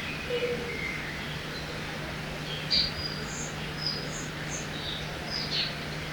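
Forest ambience by a river: scattered short bird chirps and calls over a steady rushing background, with the sharpest chirp a little under three seconds in.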